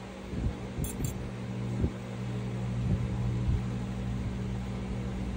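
Steady low mechanical hum, like a fan or small motor running, with soft low bumps throughout and a couple of faint high clicks about a second in.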